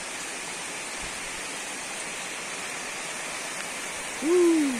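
Heavy rain falling steadily. About four seconds in, a single loud hooting call sounds over the rain, rising and then falling in pitch.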